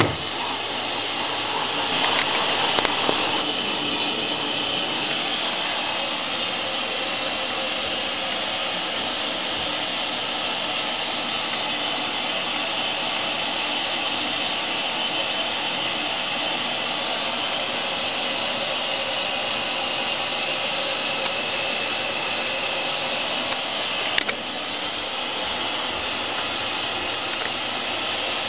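Candy GrandO Plus washing machine running its wool cycle: a steady rushing hiss, with a few light clicks about two to three seconds in and one sharper click about three-quarters of the way through.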